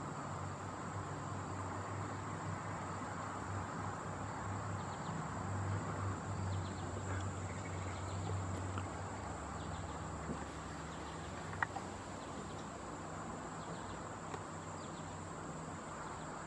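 Backyard ambience of insects trilling: a steady high-pitched drone, over a low steady hum and faint rustling, with one small click about twelve seconds in.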